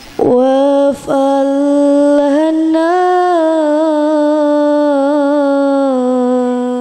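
A solo female voice singing unaccompanied: one long melismatic phrase held mostly on a single note, with a short break about a second in, a slight rise in pitch in the middle and small ornamental turns before it settles lower near the end.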